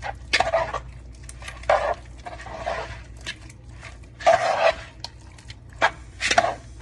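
Shrimp being stirred into their marinade in a bowl: a utensil scraping and knocking against the bowl in irregular strokes, the loudest about four and a half and six and a half seconds in.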